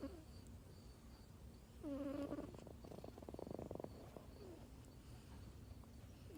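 Sleeping kitten snoring: about two seconds in, a short squeaky whistle is followed by about a second of fine rattling buzz. The squeak-and-rattle pattern recurs with each breath, every three seconds or so.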